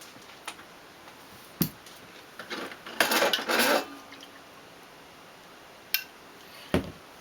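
Dishes and glass containers knocking and clattering as things are handled, as when a fridge is being emptied. There are a few single knocks and a louder jumble of rattling about three seconds in.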